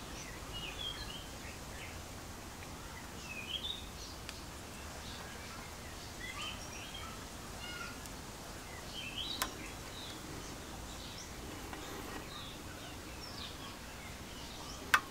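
Small birds chirping on and off over a steady low background hiss, with a click about nine seconds in and a louder, sharp click near the end.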